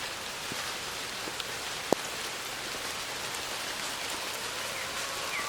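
Steady rain falling, with scattered drops tapping and one sharper tap about two seconds in.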